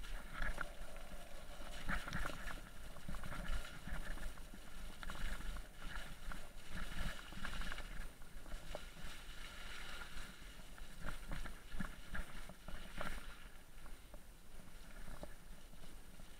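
Mountain bike rolling over a wet, muddy, rutted track: tyre noise and splashing through mud and puddles, with irregular knocks and rattles from the bike over the bumps.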